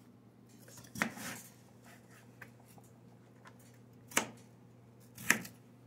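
Kitchen knife chopping raw potato and striking a plastic cutting board: three sharp knocks, one about a second in and two near the end about a second apart.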